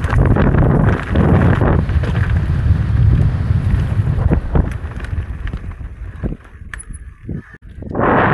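Wind buffeting the camera microphone and tyres rumbling over a rough trail during a fast e-mountain bike descent, with frequent knocks and rattles from the bike hitting rocks and roots. The noise fades and almost drops out for about a second near the end, then comes back at full strength.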